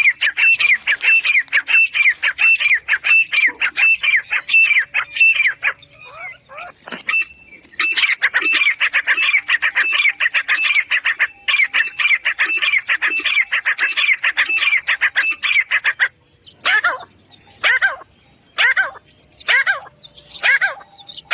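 Grey francolin calling: a loud, fast run of repeated high notes, about three a second, that breaks off about six seconds in and starts again. Near the end the run gives way to slower, separate notes almost a second apart.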